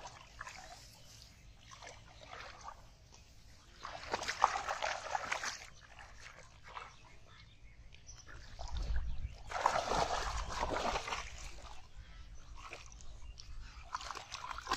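Hands splashing and sloshing through shallow muddy paddy water, with louder bursts of splashing about four seconds in and again about ten seconds in.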